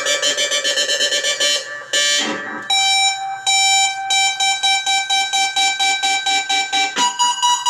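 Electric guitar notes played through a Joyo Vision Dual-Modulation pedal's modulation effect, chopped into a fast, even pulsing. The pitch changes about two to three seconds in and again near the end.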